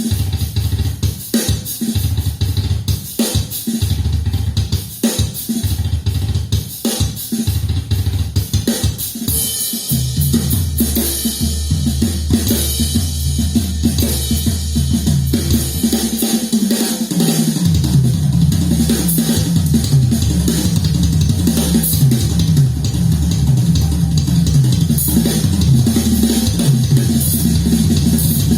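Drum-and-bass test music played back through Infinity Kappa 7 loudspeakers. A drum kit with deep kick-drum hits and cymbals plays at first. About ten seconds in, a sustained deep bass line joins. The bass drops out briefly just past the middle and then returns as a moving line.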